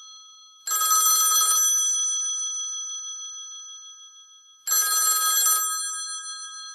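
Telephone bell ringing twice. Each ring is about a second of rapid bell clatter, followed by a ringing tone that fades slowly.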